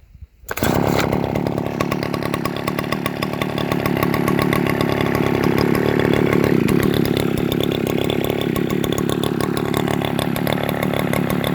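John Deere 55V two-stroke chainsaw engine fires up about half a second in and runs steadily on a test run, a little louder for a few seconds midway.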